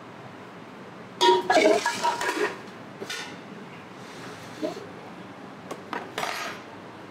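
Metal utensils and cookware clattering and clinking: a cluster of loud knocks with brief ringing about a second in, then a few lighter clinks later, over a steady background hiss.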